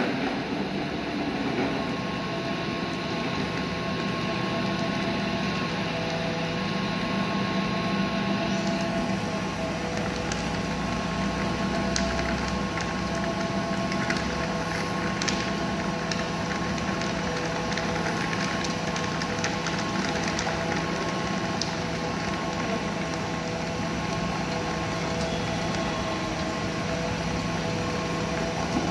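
Small electric grinding mill running steadily under load, its motor humming with several steady tones over a grainy rattle as material is fed through it.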